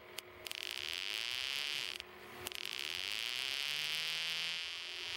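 Electromagnetic interference from a 12 V PC fan's motor, picked up by a homemade audioscope's sensor and played through its amplifier as a high buzzing whine, its pitch shifting as the fan is slowed by hand. The buzz drops out briefly near the start and again about two seconds in.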